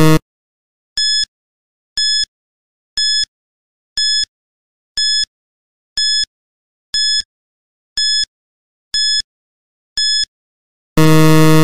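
Quiz countdown timer sound effect: a short high beep once a second, about ten in all, counting down the seconds. A longer, louder low buzzer cuts off just after the start and sounds again near the end as the time runs out.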